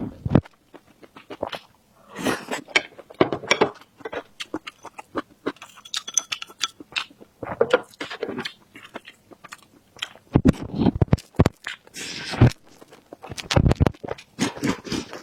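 Close-miked eating: irregular chewing with crisp crunching and clicking bites, louder and heavier in a few short stretches.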